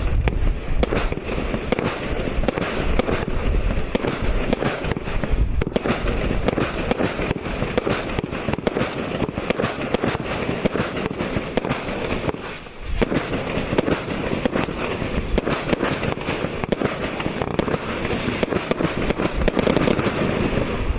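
Omega Fireworks Zeta consumer fireworks battery (cake) firing shot after shot in rapid, dense succession, the bangs and crackles overlapping almost continuously. There is a short lull about twelve seconds in before the firing picks up again.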